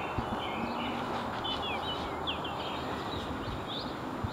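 Small birds chirping and twittering, short quick notes, over a steady outdoor background hiss.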